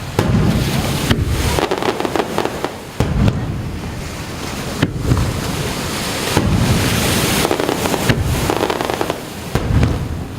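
Aerial fireworks shells bursting over the sea: about seven loud bangs, one every second or two, with crackling between them.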